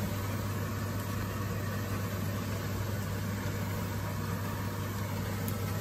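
Bacalao and potato cakes sizzling steadily in hot frying oil, over a constant low hum.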